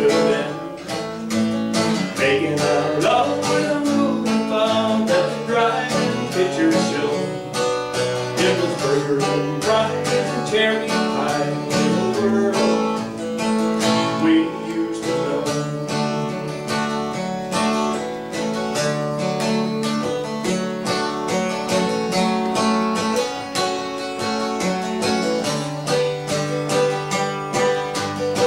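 Live country song on a guitar strummed in a steady rhythm by a solo singer-guitarist.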